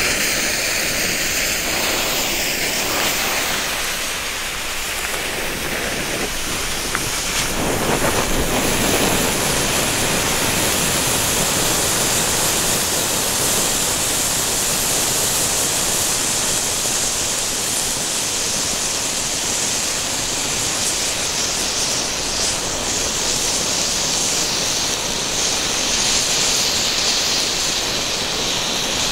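Vulkan Bengal Fuego Mix Bengal flame fountains burning together with a steady, loud hiss. It grows louder and fuller about eight seconds in.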